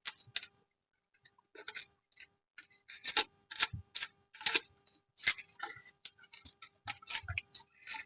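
Packaging being handled: irregular short crinkles and rustles, one every half second or so, as the contents of a screen-protector film kit are unpacked.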